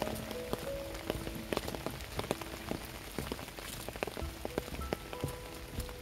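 Rain falling steadily, with many separate drops ticking sharply close by, over soft background music with held notes.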